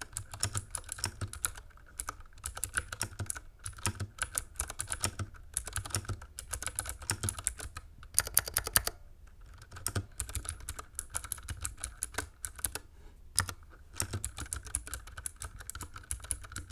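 Typing on an aluminum-bodied mechanical keyboard with clicky Cherry MX Blue switches: a fast, irregular stream of sharp key clicks in bursts, with a few short pauses.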